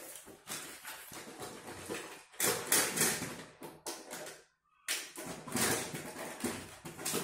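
Plastic toys clattering and rustling as a child rummages through a pile of them, in a run of irregular knocks and scrapes, loudest about two and a half seconds in. The sound cuts out for about half a second around four and a half seconds in.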